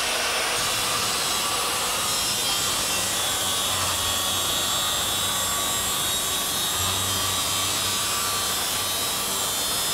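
Portable circular saw running steadily and cutting through 1/4-inch luan plywood, guided along a straight-edge fence. The blade is trimming the guide's base so that its edge marks the exact offset of the blade.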